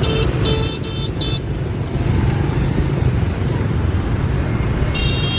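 Scooter horns honking over the steady rumble of motorbike and car traffic: four short beeps in the first second and a half, and a longer honk near the end. The honking hurries the traffic on as the light turns green.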